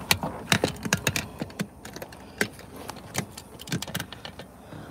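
Irregular clicks, taps and knocks from a phone being handled and set in place inside a pickup cab, many at first and thinning out towards the end.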